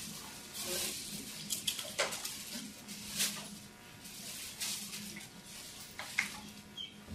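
Scattered light clicks and rustles, like handling noise at a lectern, over a faint steady low hum.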